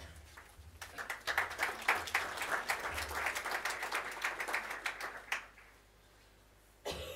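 A large seated audience applauding a speaker up to the lectern. The clapping builds within the first second, holds, then dies away about five seconds in.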